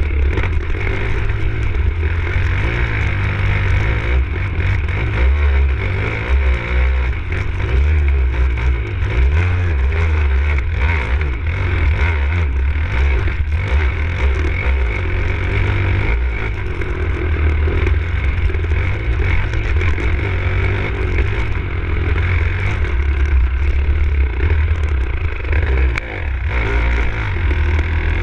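Enduro dirt bike engine being ridden hard off-road, revving up and down continuously through the gears.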